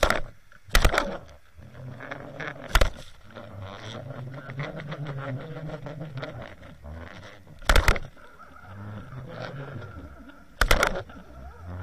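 Muffled, low rumbling water noise picked up by an underwater camera inside its waterproof housing, broken by about five loud, sharp knocks.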